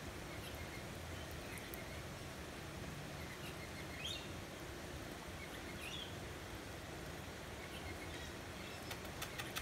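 Steady outdoor background hiss with faint, short bird chirps every second or two, and a few faint clicks near the end.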